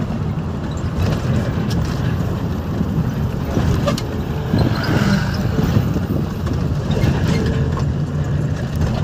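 Bus engine running and road noise heard from inside the moving bus, a steady low drone.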